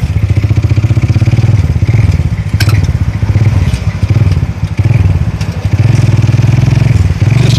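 Motorcycle engine of a sidecar tricycle, heard from the sidecar, running loud with a fast, even pulse as it rides along. It eases off briefly about two seconds in and again around five seconds, then picks back up, with a single sharp knock a little under three seconds in.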